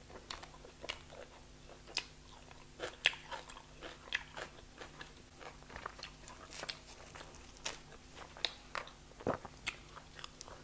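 Close-miked eating sounds: soft, irregular crackles and clicks of a piece of flatbread being torn apart by hand, mixed with chewing.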